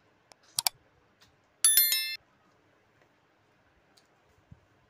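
Subscribe-button animation sound effects: a sharp mouse-click sound just over half a second in, then a bright bell ding about a second later that rings for about half a second.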